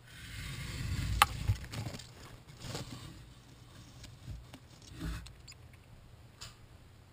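Camera handling noise: a low rumble over the first two seconds with a sharp click about a second in, then a few scattered knocks and clicks as the camera settles inside a terrarium.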